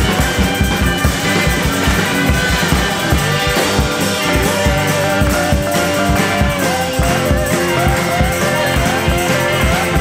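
Rock music with electric guitar over a steady drum beat; a guitar holds one long note through the middle, then plays a repeating bending figure.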